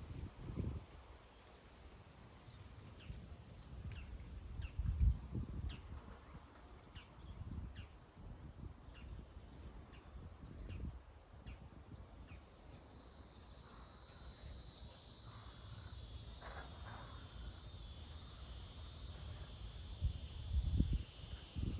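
Quiet outdoor ambience: a string of faint short high chirps, with faint steady high tones and occasional low rumbles, the loudest about five seconds in and near the end.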